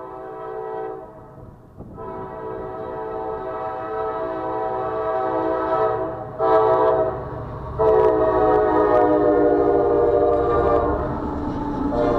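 Freight locomotive's multi-note air horn blowing the long-long-short-long grade-crossing signal: a blast ends about a second in, a long blast follows, then a short one, then a final long blast held to the end. The rumble of the approaching locomotive and its cars builds underneath from about halfway through.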